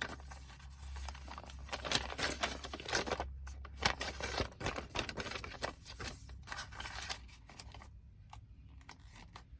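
Paper rustling and crinkling as the pages, tags and pockets of a handmade paper journal are handled and turned, in irregular short rustles and soft clicks that thin out near the end.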